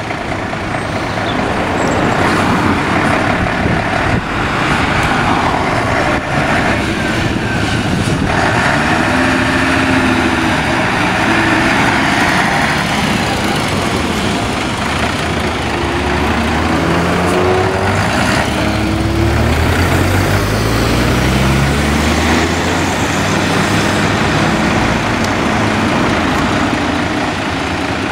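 Heavy Mercedes-Benz fire engines driving past with their diesel engines running. In the second half one pulls away, its engine pitch rising as it speeds up.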